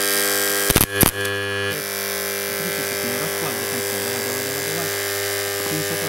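Microwave-oven transformer, rewound for high current, humming loudly as it drives current through a metal spinner and bolt. Crackling arcs and a few sharp pops fill the first couple of seconds, loudest just under a second in. The crackle then stops and the steady mains hum carries on.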